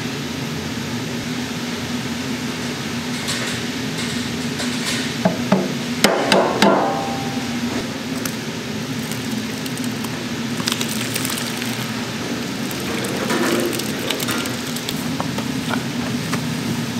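Food-factory kitchen noise: a steady machine hum with scattered clatter and knocks of utensils and containers, the loudest cluster about six seconds in.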